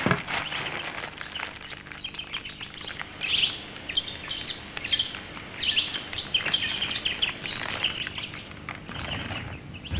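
Birds chirping and calling in quick, short high-pitched bursts, a forest bird ambience, over a faint steady low hum.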